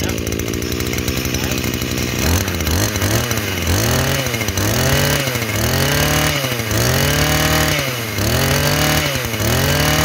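Maruyama 23cc two-stroke brush cutter engine running, idling steadily at first and then revved up and let back down about once a second, eight or so times, from about two seconds in. It runs sharp and crisp, 'like a new machine'.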